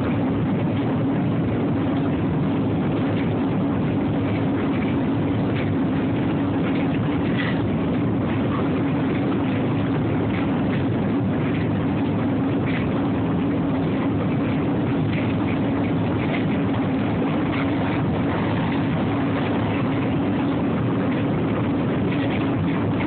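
Steady drone of a car's engine and running gear heard inside the cabin, an even low hum with faint light ticks over it.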